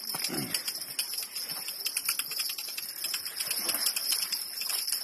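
Steady high-pitched insect buzzing, with fast irregular clicks over it.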